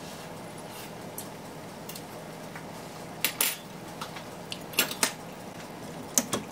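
A pot of noodles at a rolling boil, giving a steady bubbling hiss. Three pairs of sharp clinks cut through it, a little over three seconds in, near five seconds, and near the end.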